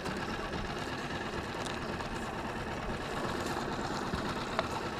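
Small 6 hp tiller outboard motor running steadily at low trolling speed, pushing a small aluminium fishing boat. A single short click near the end.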